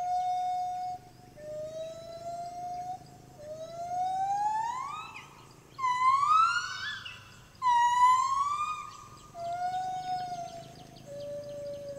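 Gibbon great call: a series of long, pure whooping notes that climb steadily in pitch and grow louder to a climax of quick rising whoops about halfway through, then fall back to lower, softer notes. Insects buzz faintly behind.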